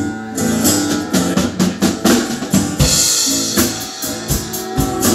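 A live band playing, with the drum kit to the fore: kick drum, snare and cymbals over guitar and bass, a cymbal crash about three seconds in.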